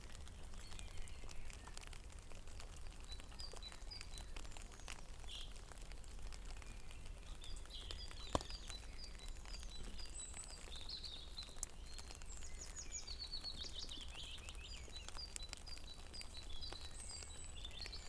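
Rain falling on a pond, many small drops ticking and pattering, with small birds chirping and singing runs of quick high notes over it. One sharper click stands out about eight seconds in.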